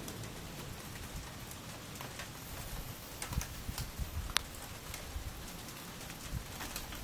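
Rain falling in a thunderstorm: a steady hiss of rain with scattered sharp ticks of drops hitting surfaces, the loudest about four seconds in.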